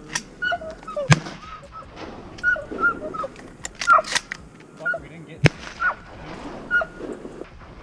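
Ducks quacking, short calls repeated irregularly. Two sharp shotgun cracks cut through, about a second in and again about five and a half seconds in.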